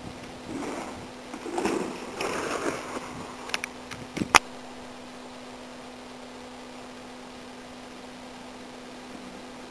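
Mountain bike rolling past close by on a dirt trail: tyre noise on the dirt, then a few sharp clicks and one loud clack as it goes by. A steady low hum runs underneath throughout.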